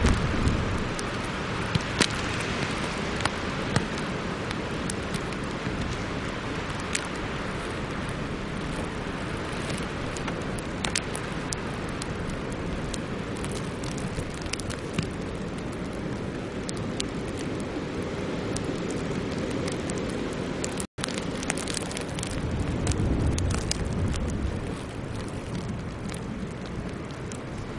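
Storm wind blowing steadily, with frequent sharp ticks of sleet striking; a stronger gust comes about 22 seconds in.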